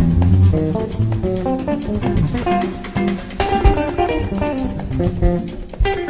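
Live jazz fusion band: an electric guitar and a multi-string electric bass play quick note runs over a drum kit.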